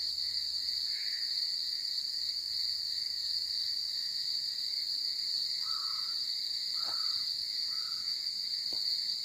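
Steady high-pitched chirring of night insects such as crickets. A few faint short calls come through in the middle and near the end, which the listener takes for a bird.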